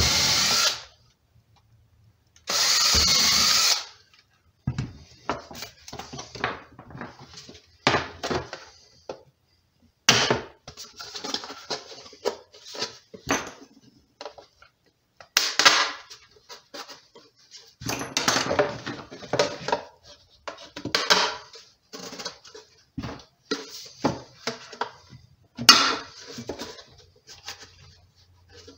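Cordless drill with a 7/32-inch bit boring through a coroplast disc and a plastic bucket lid, in two short runs of about a second each near the start. After that, irregular clattering and knocks of the plastic lid and quarter-inch bolts being handled and pushed into the drilled holes.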